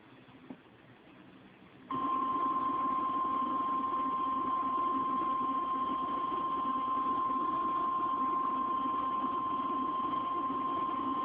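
Weather-radio warning alarm tone: one long, steady beep that comes in about two seconds in over faint radio static. It is the attention signal that sounds just before a severe thunderstorm warning is read out.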